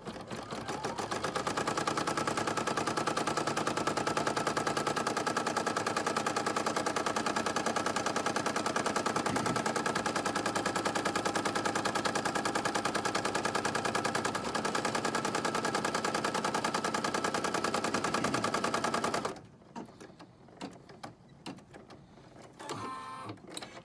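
Brother PE-770 home embroidery machine stitching at speed: a fast, even needle clatter that builds up over the first couple of seconds, runs steadily, and stops suddenly about three-quarters of the way through as the first black colour step is sewn into felt.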